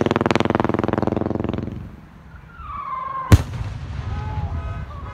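Strobe rocket climbing with a loud, rapid, buzzing train of pulses whose pitch falls steadily as it goes, fading out about two seconds in. A single sharp bang comes just after three seconds as it bursts.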